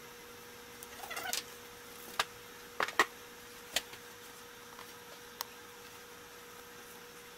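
Light handling sounds of a paint pen drawing on MDF pieces on a workbench: a short scrape about a second in, then a few sharp clicks and taps. A faint steady hum runs underneath.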